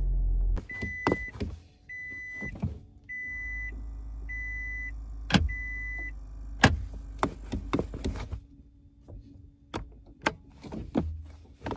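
Five short, high electronic beeps about a second apart from a Toyota Prius's warning chime, then a run of irregular clicks and knocks.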